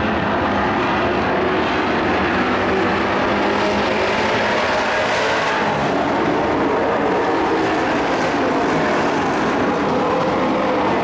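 Several dirt-track race trucks running at racing speed around a dirt oval, their engines blending into one loud, steady noise.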